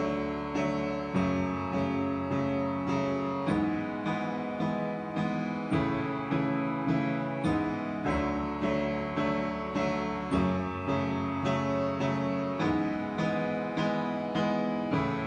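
Recorded music: the instrumental intro of the song, a piano playing steady, evenly paced notes, about three every two seconds, with no singing yet.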